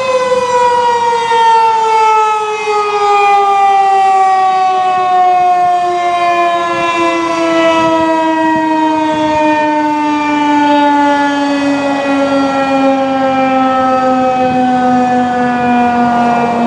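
Federal Signal 2001-130 electromechanical outdoor warning siren winding down after its steady Alert signal: a loud wail that falls slowly and steadily in pitch as the rotor coasts to a stop.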